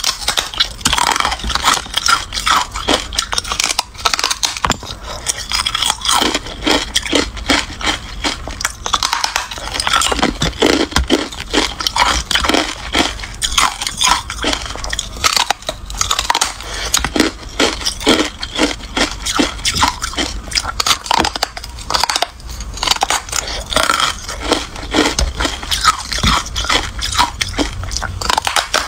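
Biting and chewing carbonated ice: a dense, unbroken run of crunches and crackles as the porous, crumbly ice breaks in the mouth.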